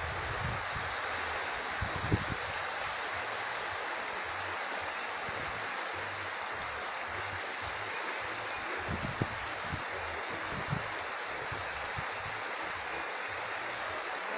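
Steady rush of a shallow river's running water, with a few brief low thumps about two seconds in and again around nine to eleven seconds in.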